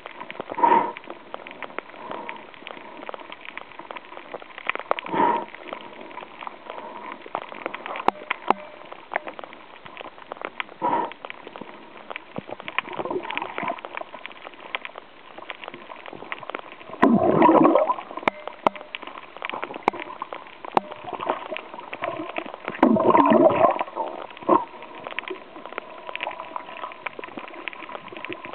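Muffled water noise picked up by a camera held underwater: steady gurgling and sloshing, dotted with many small clicks. A few louder gurgling swells stand out, two of them lasting about a second each, past halfway and again near the end.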